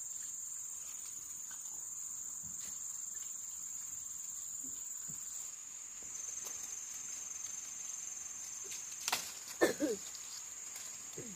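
Insects chirring with a steady high-pitched drone. Near the end come a sharp knock and a few brief louder sounds.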